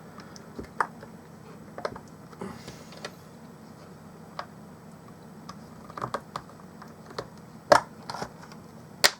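Irregular small clicks and knocks of a mini Bluetooth speaker's plastic casing and internal parts being handled and pushed back into place, with two sharper clicks near the end.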